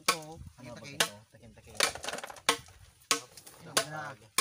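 About six sharp knocks of cooking at work, roughly two-thirds of a second apart, with people talking between them.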